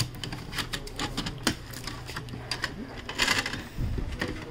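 Blue shipping tape being peeled off the plastic trays of an Epson EcoTank printer, with scattered clicks and taps from the plastic parts being handled and a longer noisy stretch a little after three seconds in.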